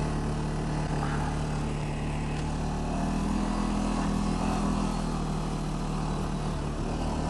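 ATV engine running steadily while riding, a constant drone that holds roughly the same pitch throughout.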